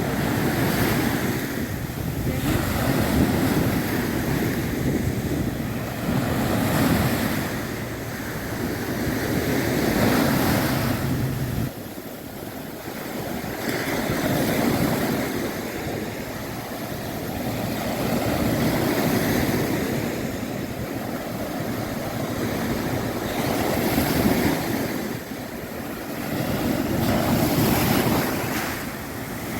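Rough sea surf breaking on a beach, the wash swelling and falling every few seconds. Wind rumbles on the microphone for roughly the first third, then stops.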